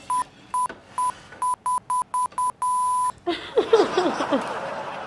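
A row of identical electronic bleeps, about eight quick ones and then one held longer, like an edited-in bleep sound effect. From about three seconds in, a louder burst of several falling, wavering cries follows.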